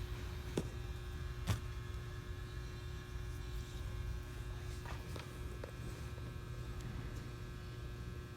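Steady low electrical hum with a few light clicks, the sharpest about a second and a half in.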